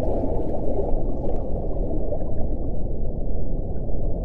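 Underwater whale recording, heard as a dense, muffled low wash of noise with faint scattered clicks; no clear whale call stands out in this stretch.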